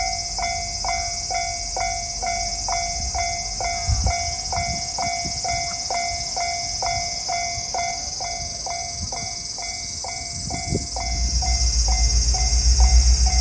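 Japanese level-crossing warning bell ringing its steady 'kan-kan', about two strikes a second. A low rumble grows louder over the last couple of seconds.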